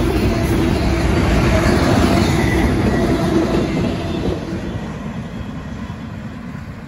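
Double-stack intermodal freight cars rolling past at speed, a steady loud rumble of steel wheels on rail. It drops away after about four seconds as the end of the train passes and recedes.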